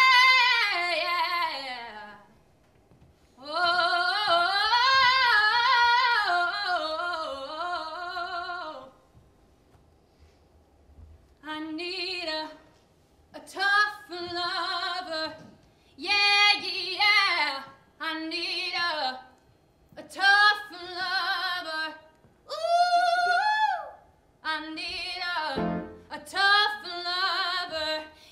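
A woman singing solo in a musical-theatre belting style, her held notes wavering with vibrato. A long note slides down and fades in the first two seconds, then a long phrase follows, a pause of a couple of seconds, and a run of short sung phrases with brief breaks between them.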